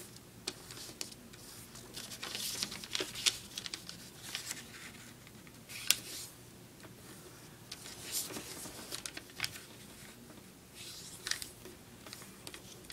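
A sheet of notebook paper rustling and crackling as its corners are folded in to the centre and the creases are pressed flat by hand. It is a scatter of short, crisp crackles with a sharper snap about six seconds in.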